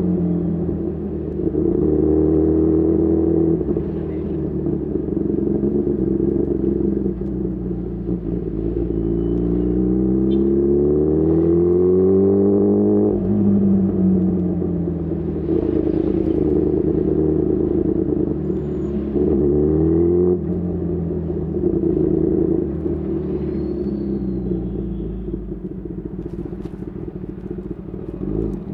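Kawasaki ZX-10R's inline-four with a decat exhaust pulling up through the revs twice, each climb ending in a sharp drop in pitch at the shift. Near the end it eases off to a lower, steadier running note.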